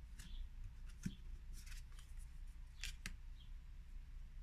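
Tarot cards being handled during a flip-through: a few faint, brief papery slides and flicks as cards are moved, with a soft knock about a second in.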